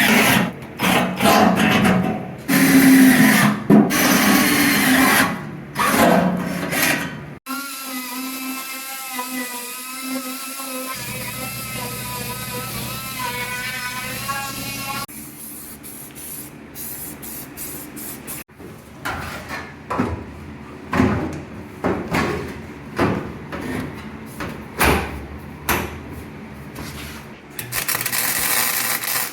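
Power tools working on truck body metal, in several cut-together clips. A high-pitched drill or grinder whine shifts in pitch, then a wavering motor hum, then a long run of short, sharp tool bursts.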